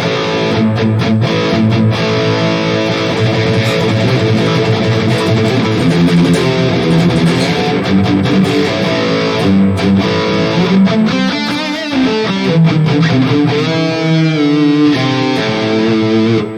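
Electric guitar played through a Mooer GE200 modeler's high-gain distortion patch: an 808 Tube Screamer overdrive into a Powerball preamp model, a Mesa V30 4x12 cabinet IR, delay and hall reverb. Heavy distorted chords and riffs give way to single-note lines with vibrato in the second half, and it stops abruptly near the end.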